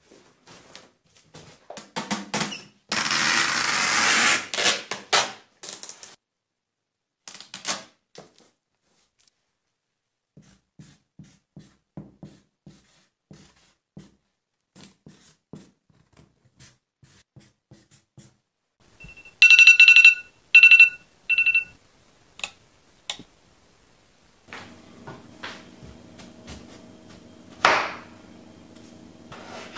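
A loud rasping burst about three seconds in, then the faint scratching of a felt-tip marker writing on a cardboard box. About twenty seconds in come a few short, high electronic beeps, the loudest sound here. After that a steady low hum starts, with a single knock of a knife on a wooden cutting board near the end.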